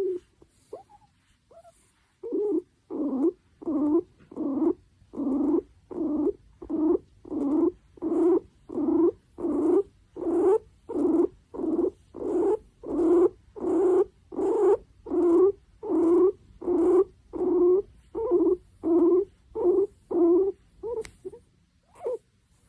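A guinea pig calling in a steady rhythmic series of short pitched squeaks, about one and a half a second, starting about two seconds in: the contented 'feels good' call.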